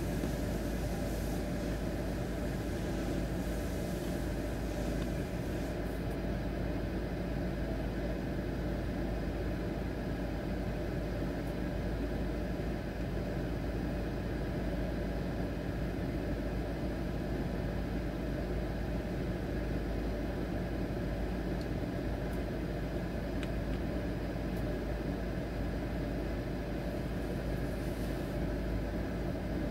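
Car wash tunnel equipment running: a steady mechanical hum with a low drone and no breaks. A faint high hiss drops away about six seconds in.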